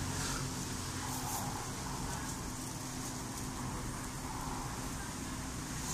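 Steady street background noise: a low rumble with a steady hum and a soft high hiss.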